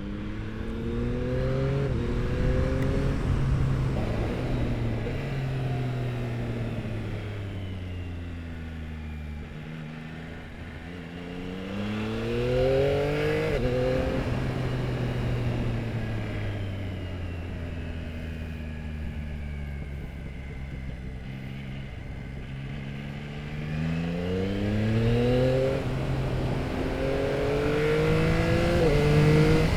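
Yamaha R9's inline-three engine through an Akrapovic exhaust, pulling hard with quick upshifts about halfway through and twice near the end, and falling in pitch as the throttle is closed between the pulls.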